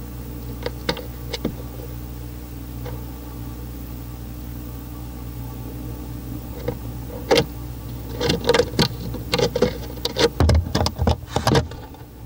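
Scattered scratches and knocks, then a quick run of louder scrapes and thumps near the end, in an owl nest box, over a steady electrical hum from the camera's microphone.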